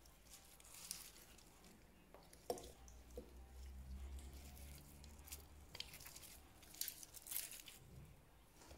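Faint handling sounds of crisp french fries being laid on a plate by a gloved hand: light taps and rustles, with one sharper click about two and a half seconds in and a little cluster of them near the end.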